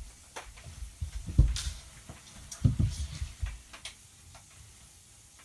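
Scattered clicks and dull knocks, with the loudest around one and a half and about two and three-quarter seconds in.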